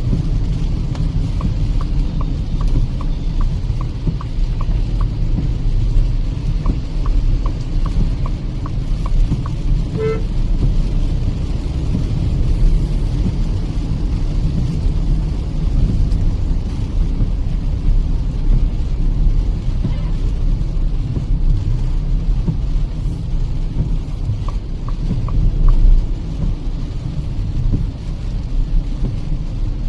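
Steady road and engine rumble inside a Kia Seltos petrol car's cabin on a wet highway. A run of quick, even ticks plays through the first ten seconds and again briefly near the end, and a short car horn toot sounds about ten seconds in.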